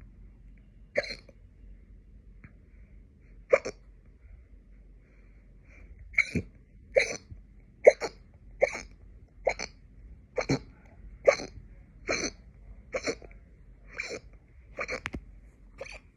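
A person's hiccups: two spaced apart in the first few seconds, then a steady run of about a dozen more, roughly one a second.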